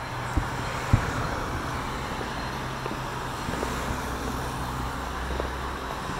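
Distant fireworks booming: two sharp bangs within the first second, the second the loudest, then a few fainter ones. Under them runs the steady low hum of road traffic and a running car engine.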